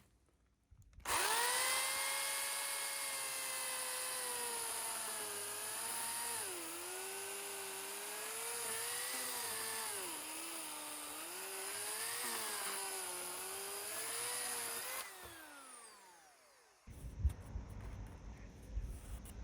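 An electric power tool runs at high speed, its pitch dipping and recovering again and again as it is pressed into the work. About fifteen seconds in it is switched off and winds down with a falling whine. Low, irregular knocks of handling follow.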